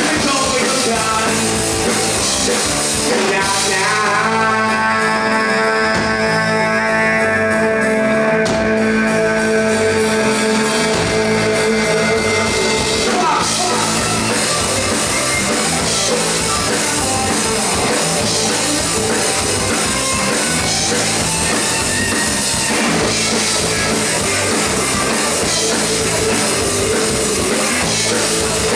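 Rock band of vocals, electric guitar, bass and drum kit playing live. For about ten seconds, from a few seconds in, steady held notes ring out, then the full band plays on.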